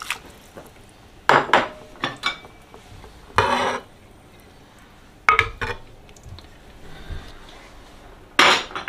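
A ladle and dishes knocking and clinking against a clay pot as soaked rice is stirred into lamb broth: a handful of separate clatters, the loudest near the end.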